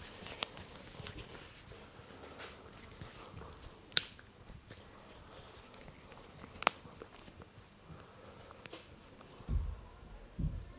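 Hands rubbing and kneading over bare skin during an arm massage, a soft rustling broken by three sharp clicks a few seconds apart. A couple of dull thumps come near the end.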